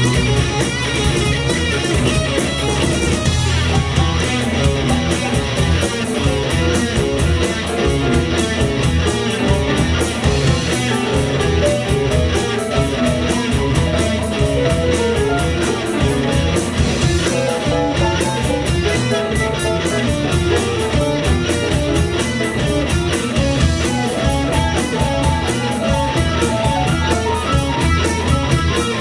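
Live rock band playing a loud, guitar-led passage with electric guitars, bass and drums, heard through the room's PA.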